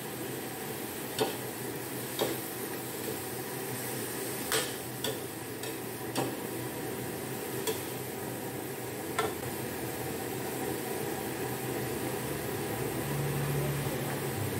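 Stir-frying in a black steel wok: a metal skimmer ladle scrapes and clacks against the pan every second or two over a steady sizzle. The clacks stop after about nine seconds, leaving only the sizzle.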